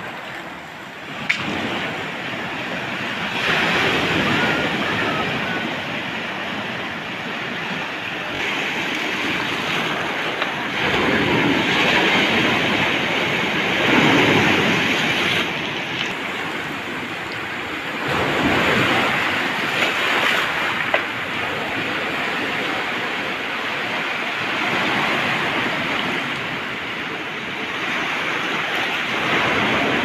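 Sea surf breaking and washing up a pebble beach. It is a continuous rushing wash that swells and ebbs every few seconds as each wave comes in.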